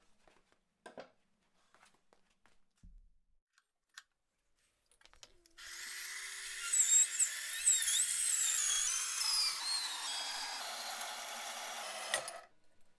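A power tool runs for about seven seconds, starting a little past the middle, with a high wavering squeal over its noise, then stops abruptly. Light clicks and taps come before it.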